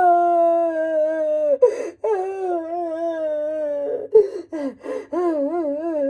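A woman wailing in heavy sobs: three long drawn-out cries, each broken off by a sharp gasping breath, the last one quavering in pitch.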